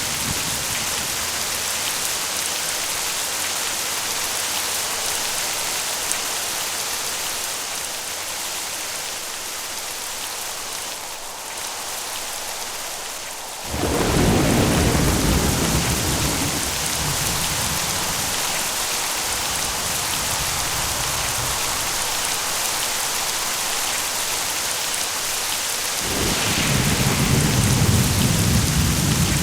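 Steady rain falling throughout. About halfway through, a sudden clap of thunder rolls on as a long low rumble, and a second rumble of thunder builds near the end.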